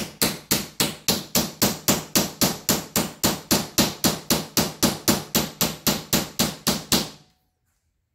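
Hammer tapping a rod through the mounting eye of an EXA 291R coil-over shock, driving out the eye's bushing. The taps are quick and evenly spaced, about four a second, and stop about seven seconds in.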